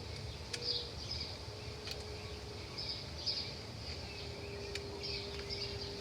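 Outdoor ambience of high chirping, repeating every second or so, over a faint steady tone. A few small sharp clicks come from a bolt, washers and nut being fitted by hand on the bike rack.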